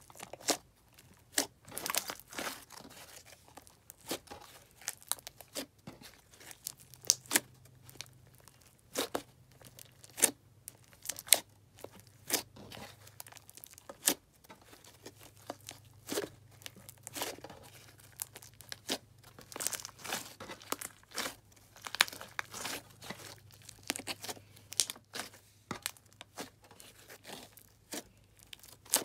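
Fingers poking, pressing and folding glossy slime, making irregular sticky clicks, pops and short crackly squelches.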